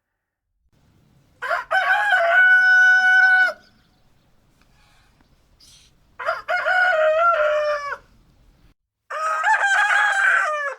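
Rooster crowing three times, each a cock-a-doodle-doo of about two seconds with a short rising start and a long held note; the last is cut off abruptly near the end.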